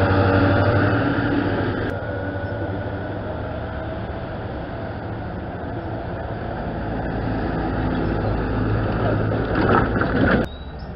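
Engines of old military trucks running as they drive past at low speed, loud at first, easing off, then swelling again as another truck comes close. The sound cuts off abruptly near the end.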